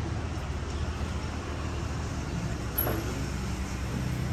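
Steady low rumble of motor-vehicle traffic, with a single short click about three seconds in.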